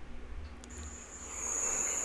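A steady, high-pitched insect trill starts about two-thirds of a second in, with a soft hiss of forest background rising under it: the start of a field recording.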